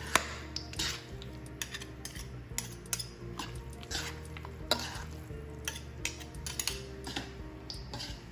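Two spoons clinking and scraping against a metal mixing bowl as a chopped raw cauliflower salad is tossed, in many irregular clicks and scrapes.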